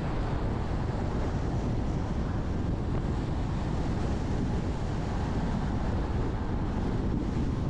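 Steady wind rumbling and buffeting on the camera microphone.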